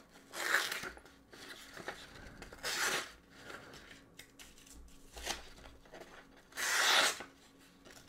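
Plain-edged blade of a Bibury pliers multitool slicing through a sheet of paper in four or five separate strokes, the longest and loudest near the end. The blade cuts the paper acceptably, a paper test of its sharpness.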